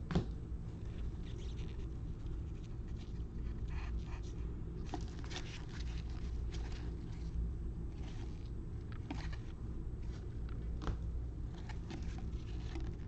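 Football trading cards being handled and flipped through one by one: scattered soft clicks and rustles over a steady low hum.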